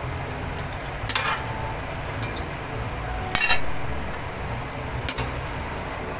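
Metal spoon clinking and scraping against a metal wok as chicken pieces are lifted out. There are two sharper clinks, about a second in and about halfway through, with a few lighter taps between, over a steady low hum.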